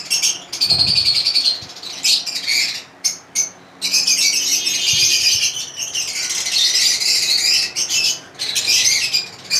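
A flock of caged lovebirds chattering and chirping, in short bursts at first, then a dense, continuous high-pitched chatter from about four seconds in.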